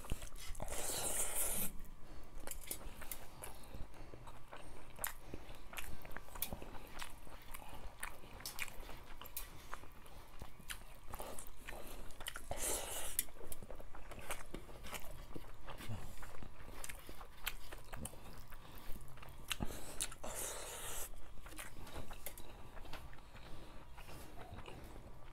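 Close-up mouth sounds of people eating rice and fish soup by hand: wet chewing and lip-smacking with many small clicks. Three louder airy sounds of about a second each come near the start, the middle and about two-thirds through.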